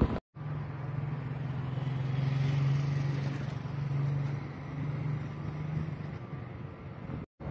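A motor vehicle engine running with a steady low hum over street noise. The hum swells about halfway and fades out near the end.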